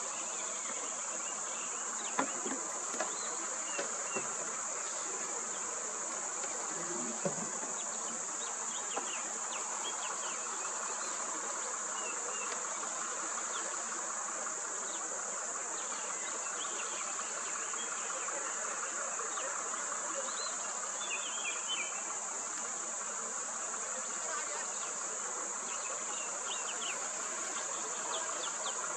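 Steady, high-pitched drone of a roadside insect chorus, unbroken throughout, with a few faint short knocks in the first several seconds.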